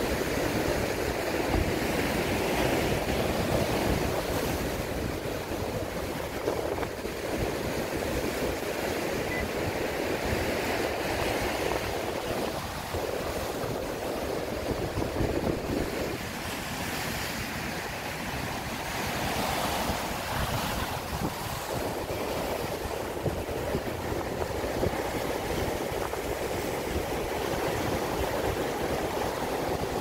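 Sea waves breaking over rocks and concrete tetrapods: a continuous rushing surf that swells and eases as each wave comes in and washes back.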